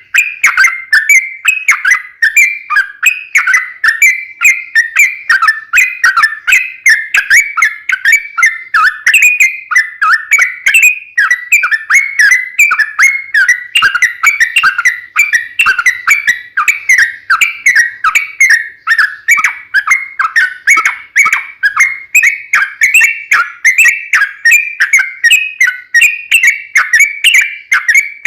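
Yellow-vented bulbul (trucukan) in full song, pouring out a long, unbroken run of quick, bubbly warbling notes, several to the second.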